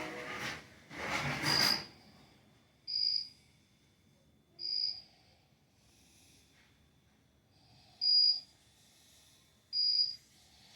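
Cricket-chirp sound effect of a model railroad layout: single short, high chirps repeating every one and a half to two seconds, five in all, with a longer pause in the middle. Two rushing hiss-like bursts of noise sound in the first two seconds.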